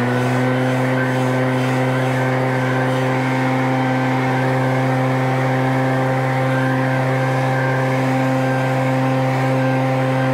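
Echo PB-9010 backpack leaf blower's 79.9 cc two-stroke engine and fan running at a steady high speed, blasting air out of the tube.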